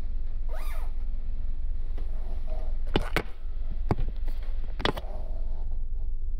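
Steady low rumble of a car ferry's machinery with a faint steady hum. Several sharp clicks and knocks come between about three and five seconds in.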